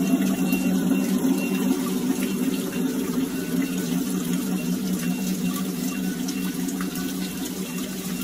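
Steady rush of running water from a garden water feature, even and unbroken.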